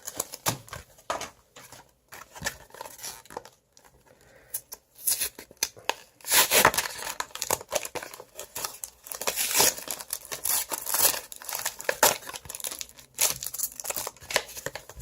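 Plastic retail packaging being torn open and crinkled by hand to free booster packs, in irregular bursts of tearing and crackling with the loudest rips about halfway through and again near the end.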